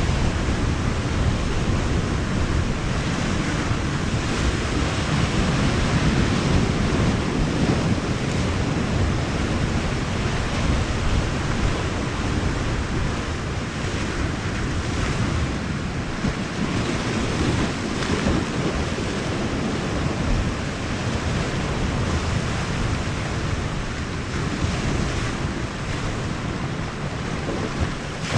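Sea waves washing and breaking on the shore, with wind buffeting the microphone, as a steady noise.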